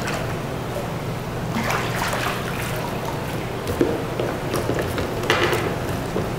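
A hooked crucian carp splashing at the surface of an indoor fishing pond as it is drawn in and netted. There are splashes about two seconds in and again about five seconds in, over a steady low hum.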